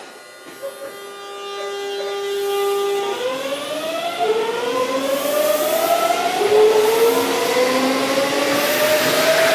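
Electric limited express train pulling out of the station: a steady electrical tone at first, then its traction motors give a whine that slides up in pitch again and again in steps as the train gathers speed.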